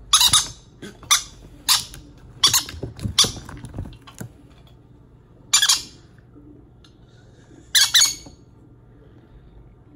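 Baby green-cheeked conures giving short, scratchy begging squawks in a quick series: five in the first four seconds, one more near the middle, and a quick double call near the end.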